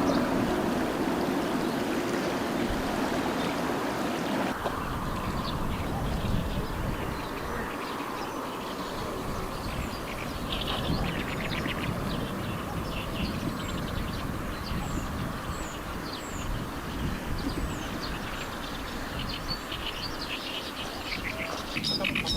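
Wind rumbling over the microphone, with small birds chirping and calling on and off over it. The wind noise is heavier for the first few seconds and drops abruptly.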